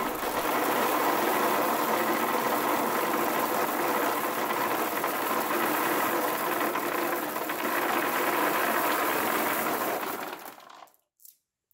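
Thousands of Skittles pouring and sliding off a tilted wooden shelf panel in a dense, continuous rattle of hard candy shells. The rattle thins out and stops about ten and a half seconds in.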